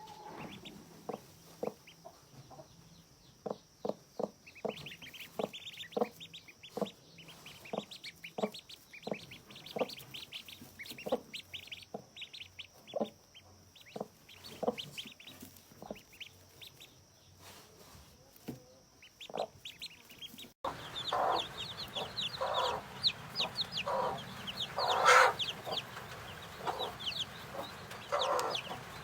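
Mother hen clucking in short, evenly repeated clucks about once a second while her chicks peep in thin high cheeps. About two-thirds through, the sound changes abruptly to busier, louder clucking and peeping, with one louder squawk-like burst.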